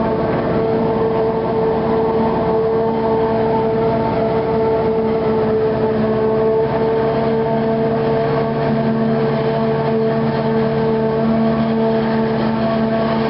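Forage harvester chopping maize: the engine and the spinning chopper and blower make a loud, steady machine whine with several fixed tones. A second, lower engine note joins about nine seconds in as the tractor towing the forage trailer comes alongside.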